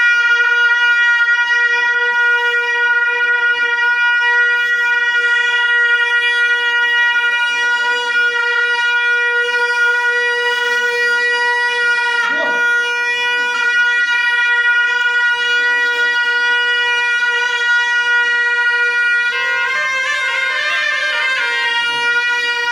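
Tibetan gyaling horns (monastic double-reed shawms) holding one long unbroken high note. Near the end a second line wavers and ornaments over the held note.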